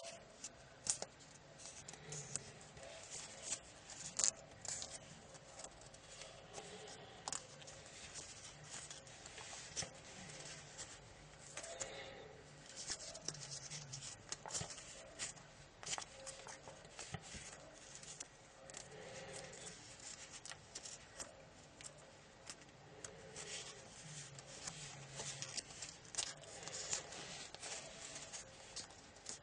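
A small sheet of origami paper being folded and pinched into creases by hand, rustling and crackling in many short, quiet crinkles.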